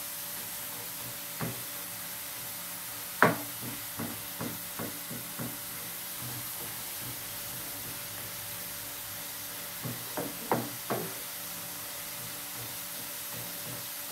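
Wooden spatula knocking and scraping against a metal frying pan while stirring food strips. The loudest knock comes about three seconds in, followed by a run of lighter taps and another cluster of taps about ten seconds in. A steady hiss of frying sits underneath.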